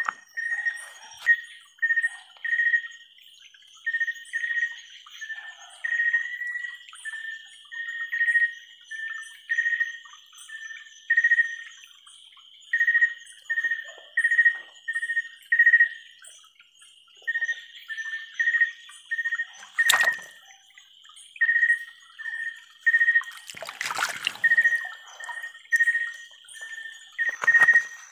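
Night chorus by a river: a short, clear call repeated about three times every two seconds over a steady insect trill. Two louder splashes come two-thirds of the way through and again a few seconds later.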